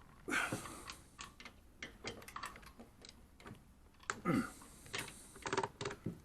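Scattered light clicks and knocks of hands and metal parts on a refrigerator door and its newly fitted hinge, with a scrape or creak about a third of a second in and another just past four seconds.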